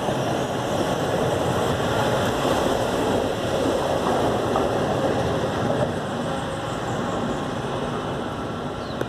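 Electric commuter train running on the rails, a steady rumbling rolling noise that eases a little after about six seconds.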